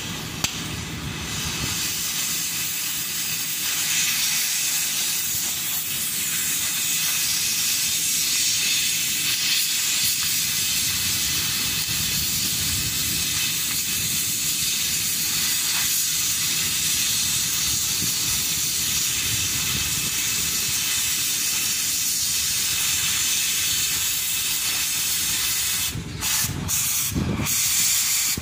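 Oxy-fuel cutting torch hissing steadily as it cuts through steel plate; the hiss breaks off briefly a few times near the end.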